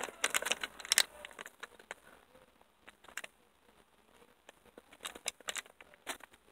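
Crackling and rustling of a cigarillo pack being handled and opened, in bunches of short clicks about half a second in and again around five seconds in, nearly quiet in between.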